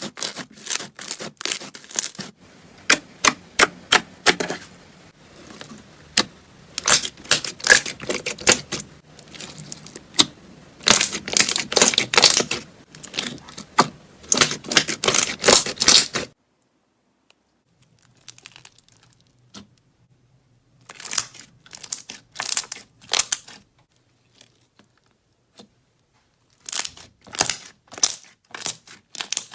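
Slime being pressed and worked, its trapped air bubbles popping in rapid runs of sharp little clicks and pops. The popping stops for several seconds about halfway through, then comes back in shorter, sparser bursts.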